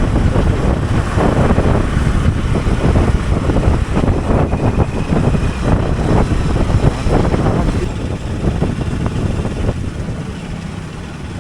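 Hero Xpulse 200 Pro's single-cylinder engine running under way, mixed with heavy wind rushing over the microphone; it eases off somewhat in the last few seconds.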